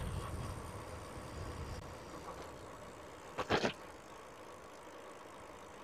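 Bicycle being ridden slowly, with a low rumble of wind and tyres that fades, and a short double rattle about three and a half seconds in.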